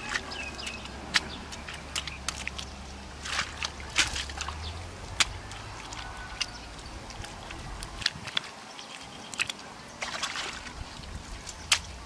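Hands patting and smoothing wet mud on the wall of a dug hole: irregular sharp wet slaps and squelches, with a few longer smears. A low hum in the background stops about eight seconds in.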